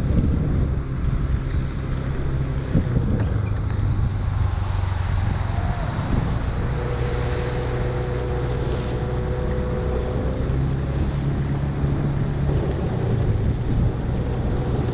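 A vehicle engine running steadily with a low hum, under a constant wash of wind and water noise. A higher steady tone joins for a few seconds in the middle.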